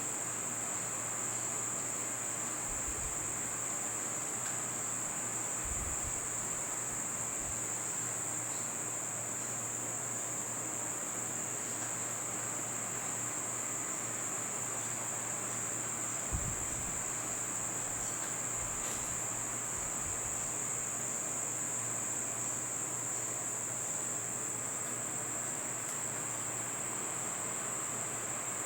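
Steady high-pitched insect chorus, a continuous trill of crickets, with a few faint low thumps.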